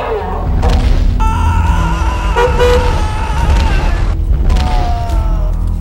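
Car horns honking, a long held blare and a shorter toot overlapping, over background music with a heavy low rumble.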